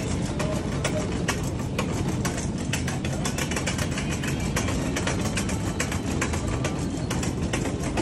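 Plastic shopping cart rolling over a hard tiled floor: a steady wheel rumble with frequent rattling clicks.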